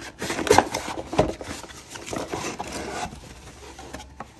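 Cardboard mailer box being opened by hand: a few sharp scrapes and knocks as the lid and tuck flap are pulled free in the first second and a half, then softer cardboard rubbing that dies away.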